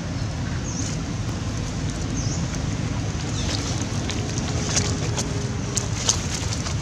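Steady wind rumble on the microphone, with scattered short crackles as a young macaque gnaws at the husk of a green coconut.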